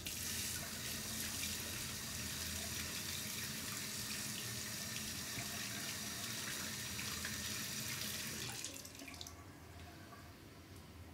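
Bathroom sink tap running, water splashing into the basin; it is turned off about eight and a half seconds in.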